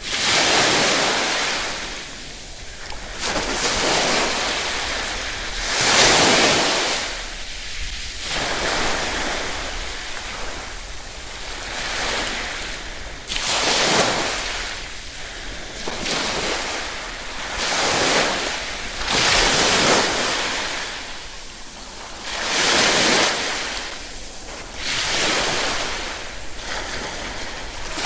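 Ocean surf: waves washing in and receding, a swell of rushing noise about every two to three seconds.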